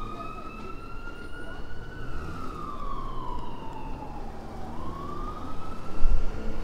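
Fire engine siren in a slow wail, rising for about two seconds, falling back over nearly three, then starting to rise again, over the low rumble of traffic. Near the end a vehicle drives past close by with a louder low rumble.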